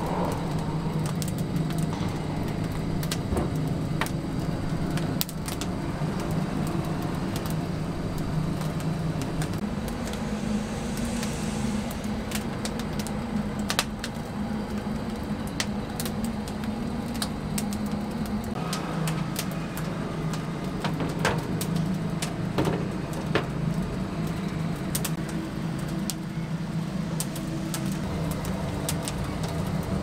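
Oak firewood fire crackling, with scattered sharp pops and snaps over a steady low hum.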